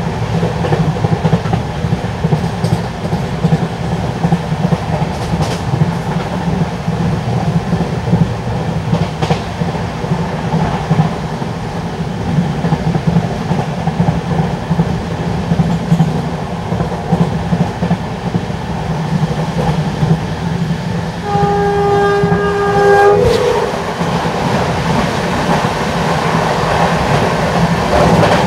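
Steady running noise of an LHB passenger coach at speed, wheels clattering on the rails. About 21 seconds in, a train horn sounds for about two seconds, its pitch stepping up near the end.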